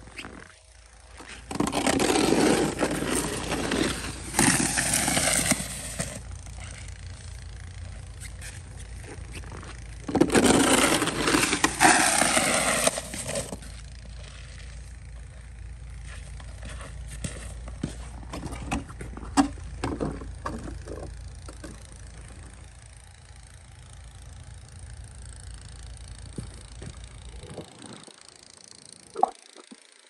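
Wide plastic snow pusher shovel with a metal-edged blade scraping along snowy pavement in two long pushes, the second starting about ten seconds in. A steady low rumble lies underneath.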